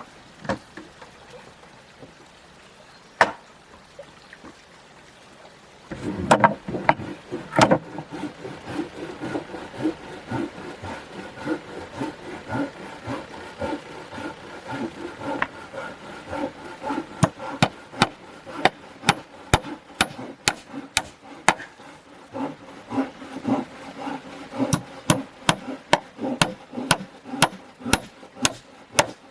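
Sharp knocks of a tool striking wood: a few scattered blows at first, then from about six seconds in a busier stretch of work with a steady rough sound beneath, the strikes settling into about two a second.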